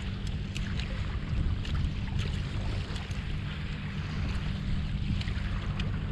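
Wind buffeting the microphone in a steady low rumble, with choppy water washing against the kayak's hull and a few scattered light ticks at irregular moments.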